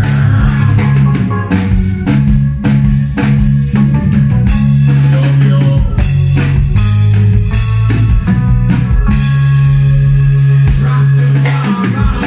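Live band playing amplified music: drum kit keeping a steady beat under a deep, sustained bass line, with electric guitar and keyboards.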